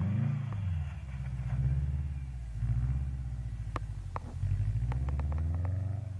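Subaru Impreza STI's turbocharged flat-four engine revving up and down as the car spins its wheels and slides in circles on snow. A few sharp clicks come in the middle.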